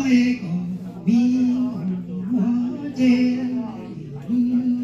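A man chanting txiv xaiv, the Hmong funeral lament, into a microphone. Long held notes step between a few pitches, in short phrases with brief breaks between them.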